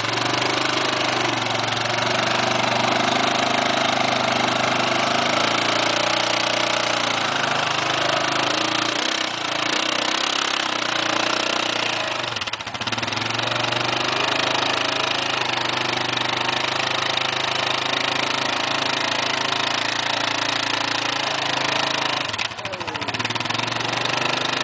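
Yamaha ATV's engine running steadily at low revs as the quad crawls slowly over rock, with a few brief dips in the sound.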